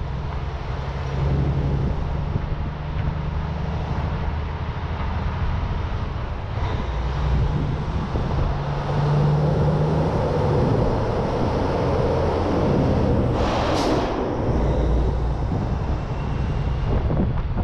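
Heavy tow truck's diesel engine running under way while towing a tractor-trailer, with road rumble and wind noise on the roof-mounted microphone. A short, sharp hiss of air cuts in about three-quarters of the way through.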